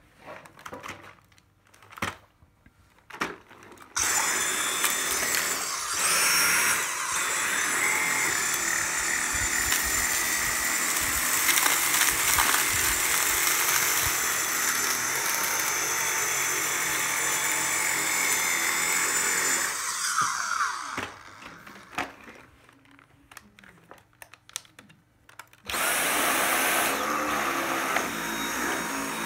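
Dyson cordless stick vacuum running on carpet. It switches on about four seconds in with a high, steady motor whine, steps up in pitch a couple of seconds later, and winds down with a falling pitch about twenty seconds in. After a few clicks, a vacuum starts up again near the end.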